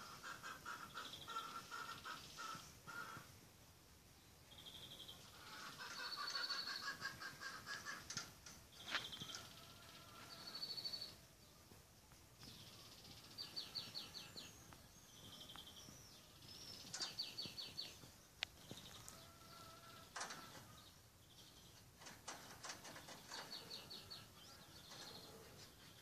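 Cockatiel chirping and chattering in a string of short, rapid trilled phrases, with a few sharp clicks in between.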